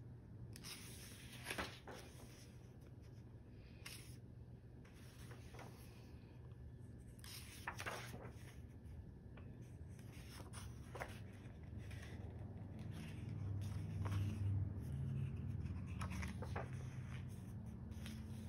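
Paper pages of a paperback photobook being turned by hand, a short papery swish every few seconds, about six in all. A low background hum swells in the second half.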